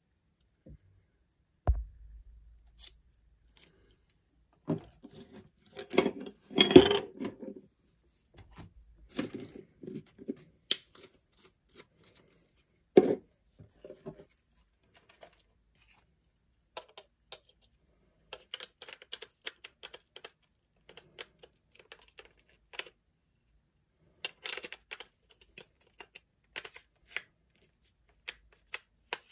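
Intermittent handling noises from working with a camera lens adapter and lens on a tabletop: scattered clicks, scrapes and rustling. There is a denser burst of rustling about six to seven seconds in and one sharp knock about thirteen seconds in.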